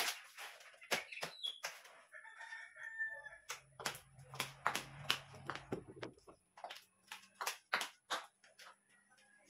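Repeated sharp clacks and knocks of shoes being set down on the plastic shelves of a metal-framed shoe rack. A faint bird call comes in about two seconds in.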